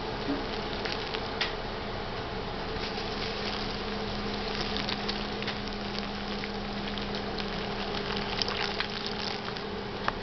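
Water pouring from a glass measuring cup onto a bowl of biodegradable packing peanuts: a steady patter with many small crackles as the peanuts soak and dissolve. A faint, steady low hum runs underneath.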